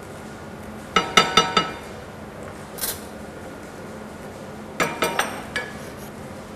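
Cookware clinking and knocking as a wooden spoon stirs chicken pieces in a frying pan: two quick runs of four or five ringing knocks, about a second in and again about five seconds in, with a short scrape between them.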